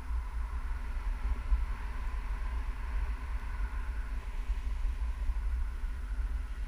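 Wind blowing over the action camera's microphone during tandem paraglider flight: a steady low rush that flutters unevenly in loudness.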